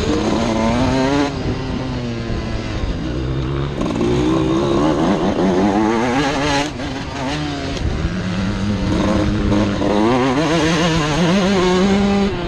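Suzuki RM 125 two-stroke motocross engine under hard riding: the pitch climbs as the throttle opens and drops sharply when it closes, several times over, with a fast wavering in the note.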